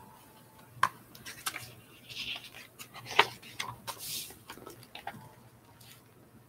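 Pages of a picture book being turned and the open book handled close to the microphone: a string of clicks and taps with short paper rustles, the sharpest tap a little after three seconds in.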